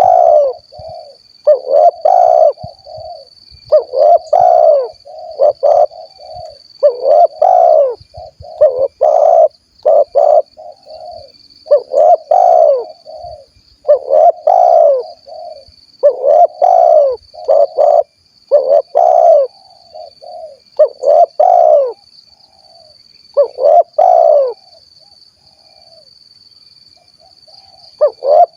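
Spotted dove (tekukur) cooing its 'kuk 1' song over and over, a loud phrase about every two seconds with softer short notes between, pausing briefly near the end. A steady thin high-pitched tone runs underneath.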